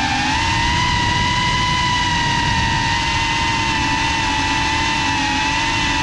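FPV quadcopter's electric motors and propellers whining steadily at near-constant throttle, heard from the camera on board, the pitch wavering slightly.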